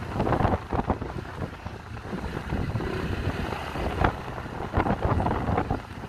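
Motorcycle running along the road, with wind buffeting the microphone and irregular louder bumps, mostly in the first second and again from about four seconds in.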